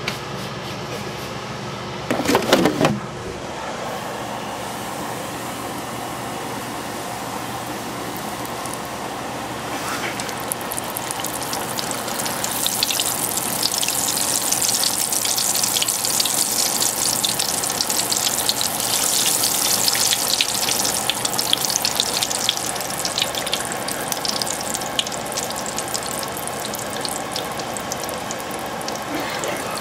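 A battered Twinkie sizzling and crackling as it deep-fries in a pot of hot oil. The crackle builds up about ten seconds in, is strongest in the middle and eases a little near the end. A short loud sound with a falling pitch comes about two seconds in.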